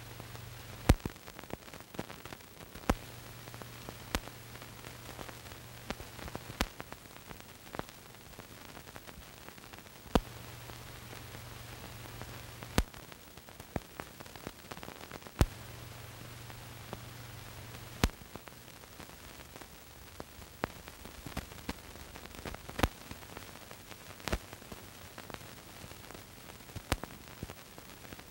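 Steady hiss of an old film soundtrack with no recorded sound of the scene, broken by scattered sharp clicks and pops every second or few, and a low hum that comes and goes several times.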